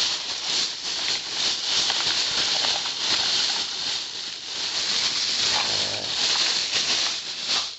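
Rummaging through toys by hand: continuous rustling with many small clicks and knocks.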